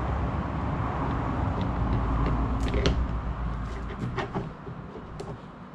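A few small plastic clicks and taps as the transducer mount and cable are handled, over a low rumble that fades out about four seconds in.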